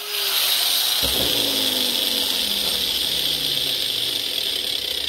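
Angle grinder working metal: a loud, steady hissing grind. After a thump about a second in, a lower motor tone falls slowly in pitch as the grinder winds down.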